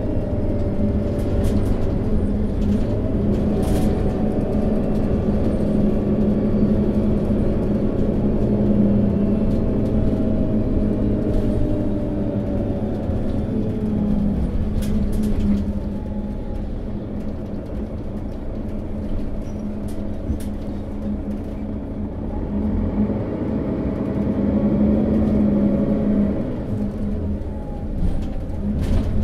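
Setra S415 NF low-floor city bus's diesel engine running under way. It works hard at first with its pitch gliding down, goes quieter about fifteen seconds in, then picks up and rises in pitch again about two-thirds of the way through. A few short clicks or rattles are heard.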